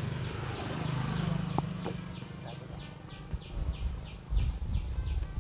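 Rural outdoor ambience: a high chirping call repeating steadily a few times a second, with a motorcycle engine passing in the first couple of seconds. Low rumbling thumps come in near the end.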